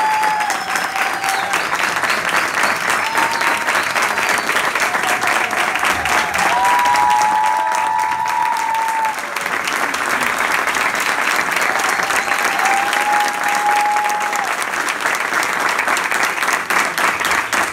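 Audience applauding steadily after a performance, with a few voices calling out long cheers over the clapping.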